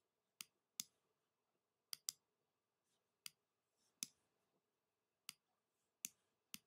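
Computer mouse button clicking: about nine short, sharp single clicks at irregular intervals, with near silence between them.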